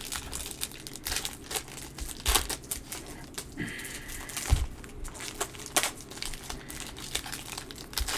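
Foil wrapper of a Prizm football card pack crinkling and tearing as it is opened by hand and the cards are worked out, with irregular sharp crackles throughout.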